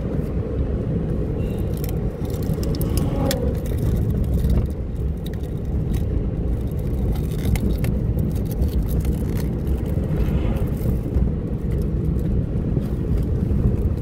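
A vehicle on the move: steady low road rumble with scattered light clicks and rattles.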